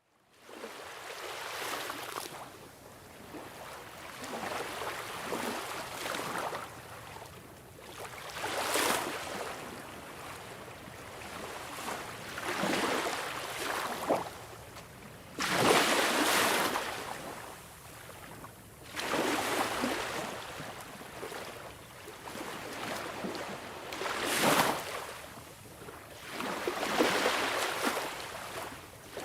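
Sea waves washing in on the shore: rushing surf that swells and ebbs every three to four seconds, the biggest wave breaking about fifteen seconds in.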